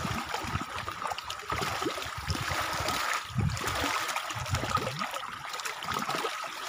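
Choppy lake water lapping and splashing irregularly against a wooden outrigger canoe.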